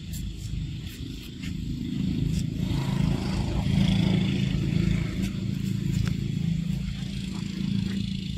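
Low rumble of a passing motor vehicle, swelling about two seconds in and easing off near the end, with a few faint ticks over it.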